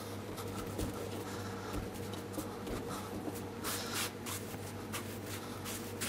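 Hands rolling brioche dough into long strands on a wooden worktop: soft rubbing and brushing, a little stronger about four seconds in, over a steady low hum.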